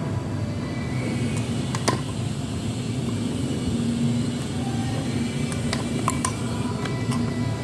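A steady low mechanical rumble with a faint hum, broken by a few short sharp clicks or taps, a pair about two seconds in and several more in the second half.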